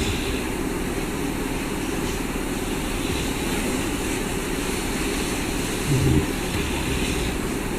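Steady low rumbling background noise, with one brief, louder low sound about six seconds in.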